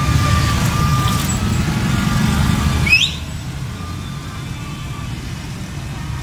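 Busy street traffic of motorcycles and cars. A loud engine rumble runs for about three seconds and then drops away abruptly, with a held high tone in the first second and a short rising whistle just before the drop. Steady, quieter traffic noise follows.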